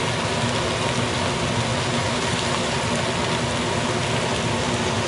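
Shrimp shells and fish bones cooking hard in a stainless stock pot on the stove: a steady bubbling hiss with faint crackles, over a low steady hum.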